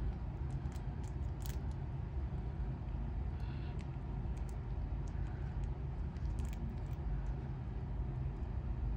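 Steady low background rumble, with faint scattered clicks and rustles as hands unwrap a rehydrated beetle specimen from its damp wrapping.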